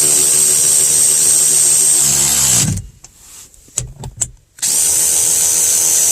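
Cordless power tool spinning a socket to tighten bolts, running steadily with a high whine. It winds down and stops about two and a half seconds in, leaving a pause with a few light knocks, then runs again from about four and a half seconds.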